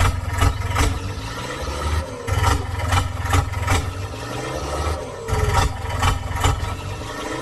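Engine running with a low hum, broken by irregular clattering knocks about two or three times a second, and a whine that glides up and down a few times.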